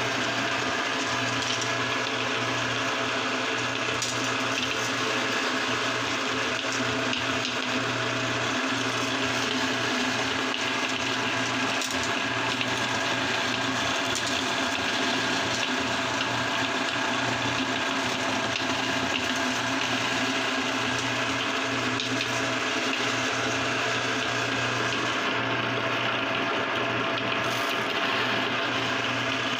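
Electric meat grinder running steadily with a constant motor hum, grinding yellow candies through its cutting plate into crumbs, with faint crunching ticks over the hum.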